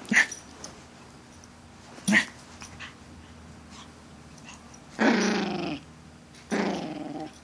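Malshi puppy play-growling while attacking feet: two short sharp yips, then two longer growls near the end, each under a second.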